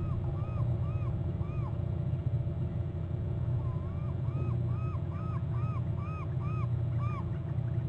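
Bald eagle chattering: a series of short, high, whistled yelping notes, about two to three a second. The first run stops under two seconds in and a second run of about ten notes starts near the middle and ends shortly before the end. A steady low rumble runs underneath.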